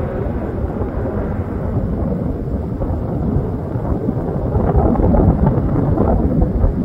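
Fighter jet's engines heard from the ground as it banks overhead: a loud, low, rough rumble that swells about five seconds in.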